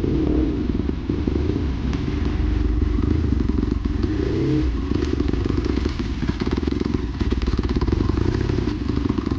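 Dirt bike engine running on a trail ride, with rattles and knocks as the bike goes over rough ground.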